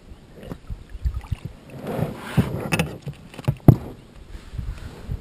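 A pike being brought out of the water into an inflatable rubber boat: splashing and rustling around two seconds in, then several sharp knocks, the loudest about three and a half seconds in.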